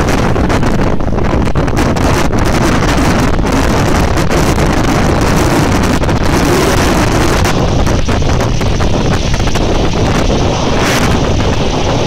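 Strong wind buffeting the microphone in a steady loud rumble, over heavy storm surf breaking and washing up a shingle beach.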